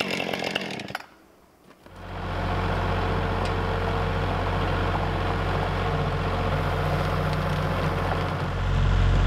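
Kubota compact tractor's diesel engine starting up and running steadily, getting louder about eight seconds in. Before it, a chainsaw runs for about the first second and cuts off, leaving a short lull.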